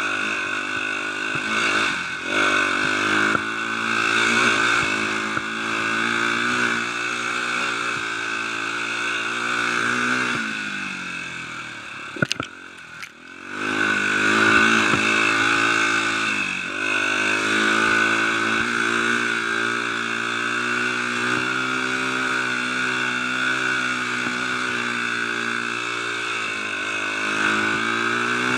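Dirt bike engine running along a trail, its pitch rising and falling with the throttle. About ten seconds in the revs drop away nearly to idle, with a sharp knock, then the engine pulls up again.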